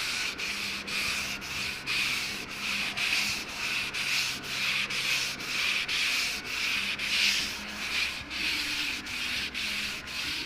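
Sandpaper on a Johnny BLOX sanding block rubbed back and forth by hand over a run in the clear coat. It makes a steady scratchy hiss in even strokes of about two a second.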